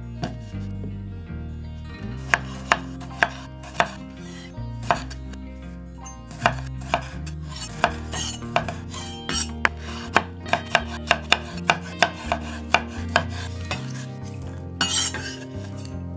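Kitchen knife chopping on a cutting board: a few spaced strikes, then a quicker run of cuts at about three to four a second through the middle.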